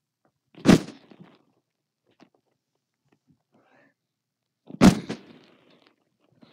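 Two loud thumps about four seconds apart, each followed by a brief rustle: the recording device being bumped and handled as it lies on a bed.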